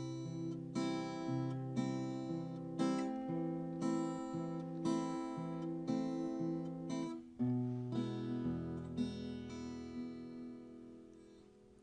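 Acoustic guitar strumming slow chords, about one a second, as the intro to a sad, country-style arrangement of a song. About seven and a half seconds in, a new chord is struck and left to ring, fading away towards the end.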